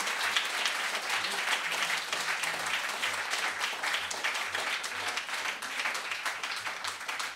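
A small audience applauding, many hands clapping together, easing off slightly toward the end.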